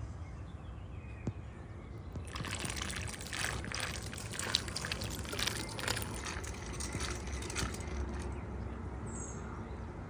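Water splashing and trickling as a robotic pool cleaner (Aiper Seagull Pro) scrubs along the pool wall at the waterline, starting about two seconds in and easing off near the end, over a low steady hum.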